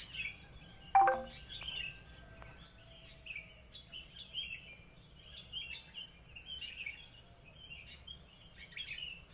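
Birds chirping again and again in the background over a steady high hiss. About a second in there is a single sharp clink with a short ring, the loudest sound.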